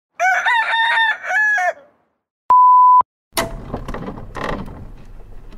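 A high, pitched animal-like call in several quick swooping notes over about a second and a half. Then a single short, steady, loud beep, followed by a busy noisy stretch with scattered clicks.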